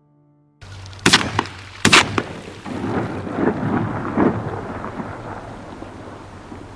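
Two sharp bangs less than a second apart, followed by a quick run of rough pulses that fade away, over a steady outdoor noise bed with a low hum.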